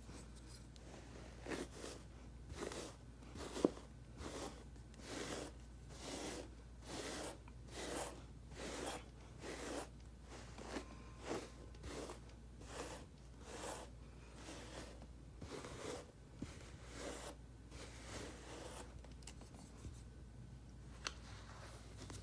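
Pet brush raked again and again through a timberwolf's thick shedding coat, making short scratchy strokes at about two a second, thinning out near the end. One sharper click comes about three and a half seconds in.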